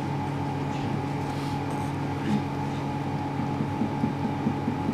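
A steady mechanical hum made of several fixed tones, with faint soft noises over it.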